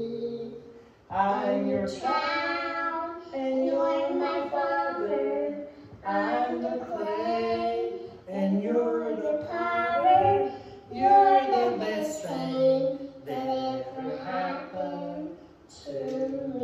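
A young girl singing a song into a handheld microphone, phrase after phrase with short breaths between.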